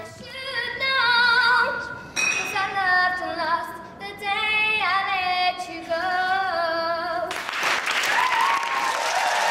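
A young girl singing solo at an audition, holding notes with a wavering vibrato. About seven seconds in the singing cuts off, and a loud rush of noise with voices over it takes its place.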